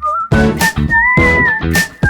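Background music: a whistled melody over a steady drum beat and bass.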